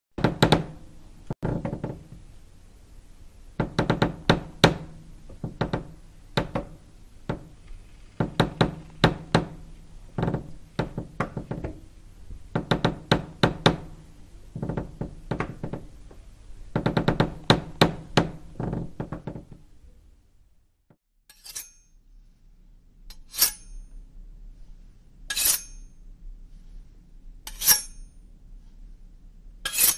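Sparse, eerie soundtrack of struck percussive sounds. Dense clusters of sharp hits with a low ringing pitch give way, after a brief pause, to single high metallic clinks about every two seconds over a low hum.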